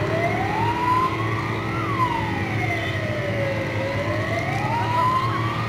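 Emergency vehicle siren wailing, its pitch climbing for about two seconds, falling for about two seconds, then climbing again near the end.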